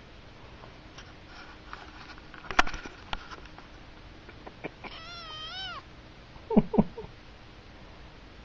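Siamese kitten giving one high, wavering meow about five seconds in. A sharp knock comes earlier, and two short thumps follow the meow, as the kitten bumps the camera.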